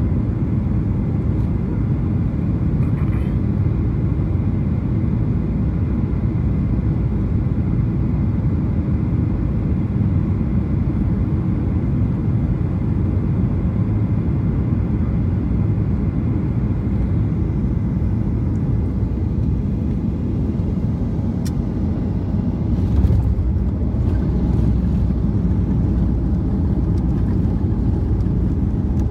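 Steady low rumble of a Boeing 737-800 heard from inside the cabin, with a short knock about three-quarters of the way through.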